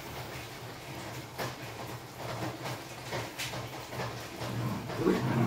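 Grated cassava squeezed by hand over a plastic basin: faint handling ticks and rustles over a steady low hum.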